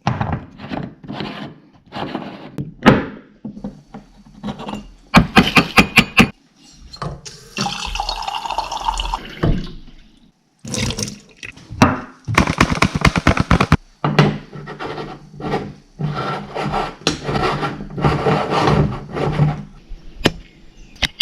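Household clatter: a run of irregular knocks and clicks, with two stretches of rushing, water-like noise, one about seven seconds in and one about twelve seconds in.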